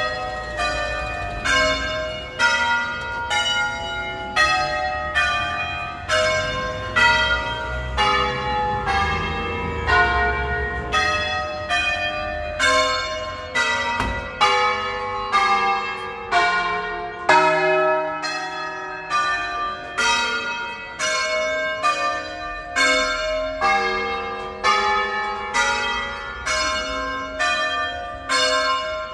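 The nine largest bells of a thirteen-bell ring tuned in E-flat, rung by hand in the Veronese concerto style. Single bell strokes at changing pitches follow one another steadily, about one and a half a second, each ringing on under the next.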